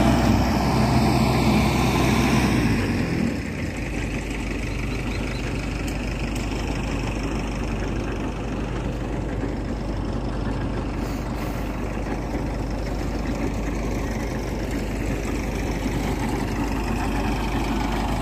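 JCB JS140 tracked excavator's diesel engine running. It is loud for about the first three seconds, then drops to a lower, steady running sound for the rest.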